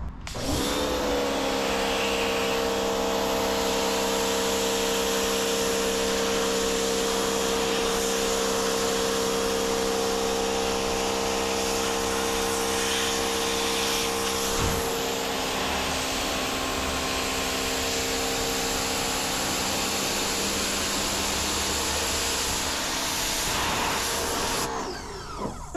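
Craftsman 1700 max PSI electric pressure washer spraying through its gentlest nozzle. The pump motor spins up just after the start and runs steadily with a hum under the hiss of the water jet, then cuts off near the end.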